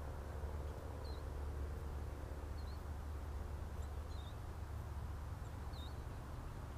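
Steady low rumble, with faint short high chirps recurring about every second and a half.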